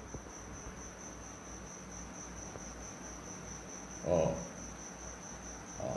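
A cricket trilling steadily in a high, pulsing tone, with a brief murmur of a man's voice about four seconds in.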